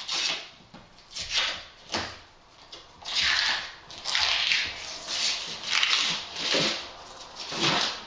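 Protective plastic film and tape being peeled off the edges of a shower tray: a run of short ripping sounds, about one a second.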